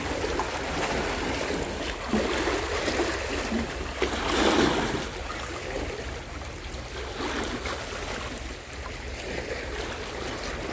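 Small sea waves sloshing and lapping around shoreline rocks, with a louder surge about four seconds in.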